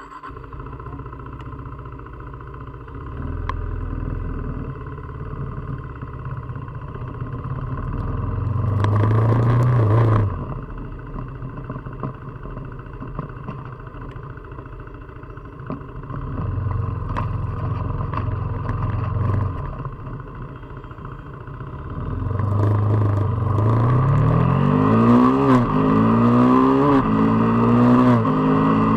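KTM RC 390's single-cylinder engine and exhaust under riding: a steady running note, a rev that climbs and drops off sharply about a third of the way in, then hard acceleration near the end, the pitch rising and falling back several times as it shifts up through the gears.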